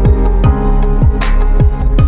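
Background music with a steady beat: deep drum hits that drop in pitch about every half second, sustained chords, and a cymbal crash at the start and again just past halfway.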